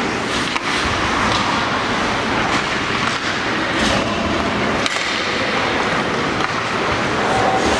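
Ice hockey play in an arena: a steady rush and scrape of skate blades on the ice, broken by a few sharp clacks of sticks or puck, the sharpest about five seconds in.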